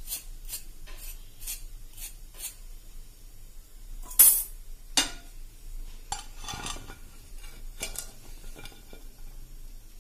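Steel fork clinking against a stainless-steel wire skimmer holding fried samosas: light clinks, a few a second, for the first couple of seconds. Then sharper metal clanks about four and five seconds in, the loudest sounds here, and a scatter of clinks as the skimmer is handled over a plate.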